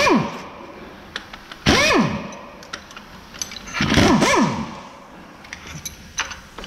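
Cordless impact wrench run in three short bursts, each ending in a falling whine as the motor winds down after the trigger is let go, undoing bolts at the front of a diesel engine block. Small metal clicks between the bursts.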